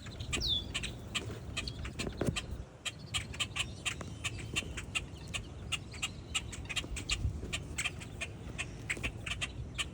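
A crowd of moorhens clucking, with many short, sharp calls overlapping several times a second. A single high falling whistle comes about half a second in.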